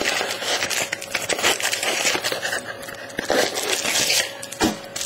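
Wrapper of a 2010 Topps Prime football card pack crinkling and rustling irregularly as it is handled and opened.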